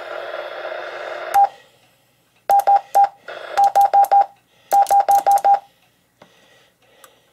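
Anytone D578UV mobile radio: a steady hiss from its speaker stops with a short beep about a second and a half in. Then come short key beeps, all at one pitch, in three quick runs of three, five and six as its buttons are pressed.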